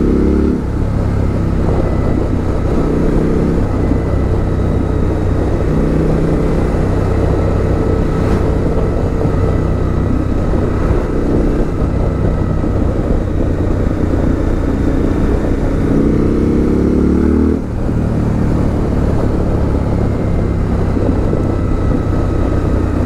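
Suzuki V-Strom 1050XT's V-twin engine running under way at road speed, with wind noise. About three-quarters of the way in the revs climb for a couple of seconds, then dip briefly and fall back.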